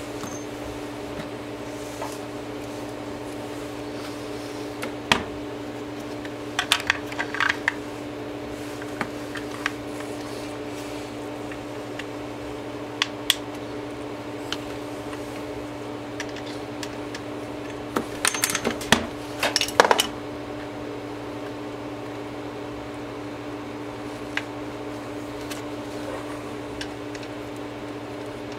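Scattered clicks and light clatter of small plastic and metal parts being handled and screwed together by hand on a workbench, with a louder run of clicks about two-thirds of the way through, over a steady background hum.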